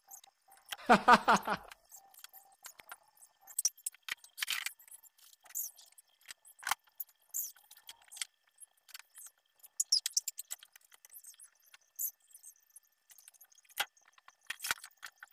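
Light clinks, taps and rattles of small household items being picked up and set down on a wooden table. About a second in there is a short, loud burst of voice.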